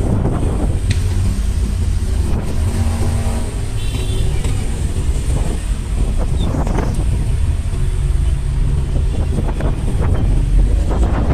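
Motor vehicle on the move: a steady, loud low rumble of engine and road noise.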